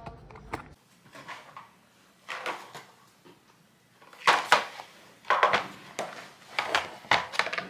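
Clear plastic caddy of skincare bottles and tubes being handled and set down, with a series of short knocks and rattles of plastic on plastic and wood, loudest about four to six seconds in.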